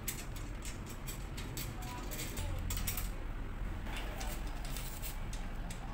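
Small metal clicks and taps as an axle nut and chain tensioner are fitted onto a fixed-gear bike's rear track-end dropout, over a steady low hum.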